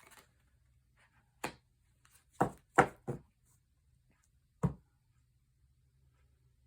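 Five short, sharp knocks on a tabletop, spread over a few seconds, the loudest about halfway through.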